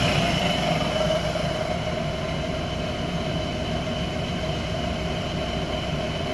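Car engine dropping back from a light rev to a steady idle over the first couple of seconds, running with a misfire because one cylinder's fuel injector has been unplugged.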